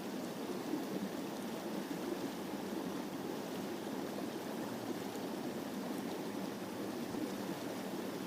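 Creek water rushing steadily below a dam, a constant even hiss of raging water with no breaks.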